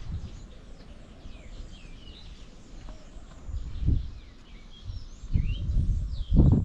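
Small birds chirping and twittering throughout in many short, quick calls. Low rumbling bumps come about four seconds in and again near the end, where they are the loudest sound.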